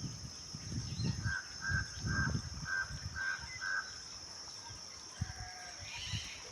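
Peacock calling: a run of six short, honking calls at one pitch, about two a second, then a fainter call near the end.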